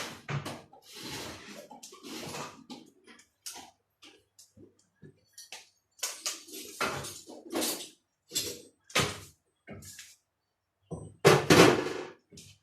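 Irregular knocks and clatter of hard objects being handled, with a louder thump near the end.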